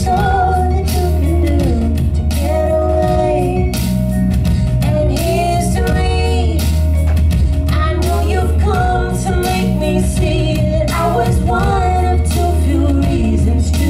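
Live amplified pop/hip-hop song: a woman singing into a handheld microphone over a sustained deep bass and a steady beat.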